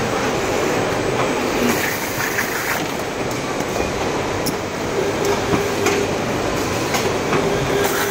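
Packaging-line machinery running: a steady mechanical din with a faint steady hum and a few sharp clacks, from roller conveyors and a carton tape-sealing machine.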